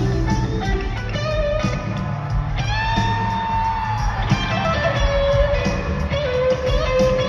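Live rock band in an arena, led by electric guitar: long held lead notes that bend in pitch, over bass and drums, with the hall's echo.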